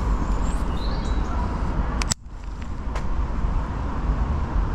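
Steady low rumble of urban outdoor background noise, with a couple of sharp clicks about two seconds in and a sudden brief drop in sound just after them.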